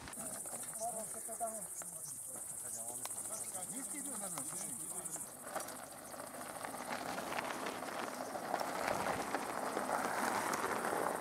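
Insects chirping steadily in a summer meadow, with faint voices, for about the first five seconds. Then the chirping stops and the rushing crunch of mountain bike tyres on loose gravel builds as riders come downhill past, loudest near the end.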